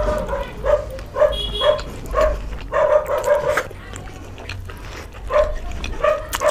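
A dog barking in short, high yaps, a quick string of them over the first few seconds and a few more near the end.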